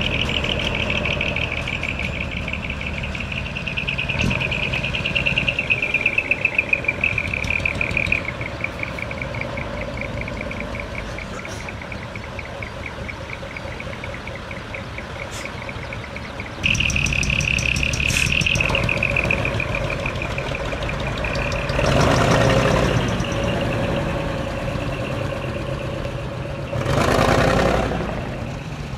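Decorated heavy trucks fitted with split exhaust manifolds (mani-wari) driving slowly past, their diesel engines giving a rapid pulsing rasp that gets suddenly louder about two-thirds of the way in. Two loud hissing bursts of air-brake release come near the end.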